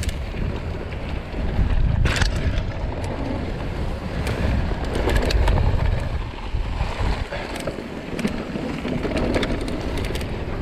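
Mountain bike descending a dirt track through corners: wind rumbling on the microphone over tyre noise, with many sharp rattles and knocks from the bike over the bumps. It swells about two seconds in and again around five to six seconds.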